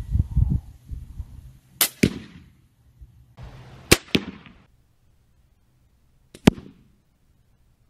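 CenterPoint Sniper Elite crossbow shot, heard three times over as a replay. Each time there is a sharp crack of the string's release, then the smack of the bolt striking an archery bag target about a quarter second later. In the last of the three the two sounds come almost together.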